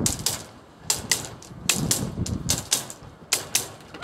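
Sharp clacking knocks in quick pairs, about one pair every 0.8 s, five pairs in all, over a low rumble.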